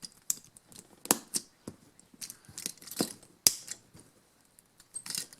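Small plastic Lego pieces being clicked and snapped together by hand: a scattering of sharp, irregular clicks and taps.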